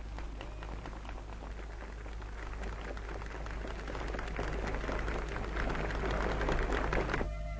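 Crowd applauding, swelling louder and then cutting off abruptly near the end as music starts, over a steady low hum.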